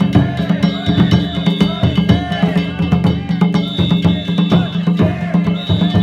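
Festival drums and gongs played in a fast, continuous rhythm: hard drum strikes under steady, ringing metallic tones.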